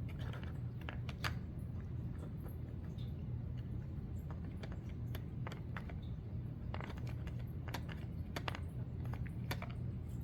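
Cats pawing and nosing at a treat puzzle toy, making scattered light clicks and taps as its compartments are worked open, with a cluster of clicks near the end. A steady low hum runs underneath.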